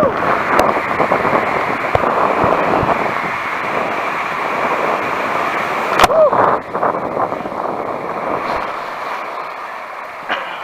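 Loud, steady rush of water sliding a rider down an enclosed water slide tube, with a brief shout and a click about six seconds in; the rush slowly fades as the rider runs out into the splash pool near the end.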